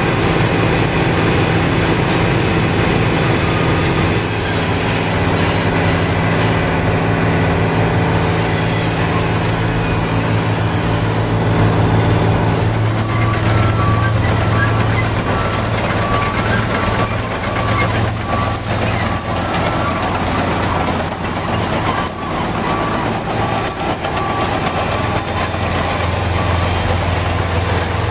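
Heavy diesel machinery of an asphalt milling operation running steadily. About halfway through, a reversing alarm starts beeping about once a second.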